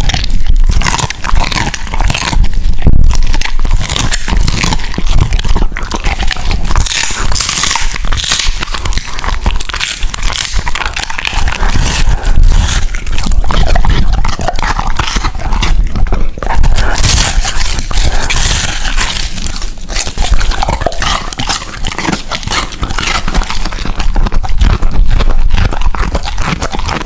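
Large dog crunching and chewing food close to a microphone, a steady run of bites and crunches throughout.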